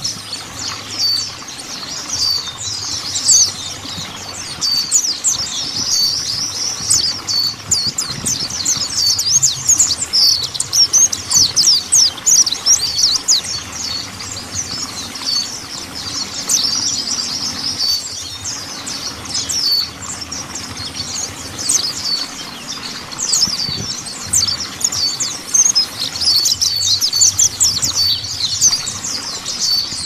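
Mountain white-eye (Zosterops montanus) singing: a fast, unbroken, high-pitched twittering of short notes sweeping up and down, with no real pauses.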